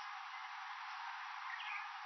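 Steady background hiss with one faint, short barn swallow chirp about one and a half seconds in.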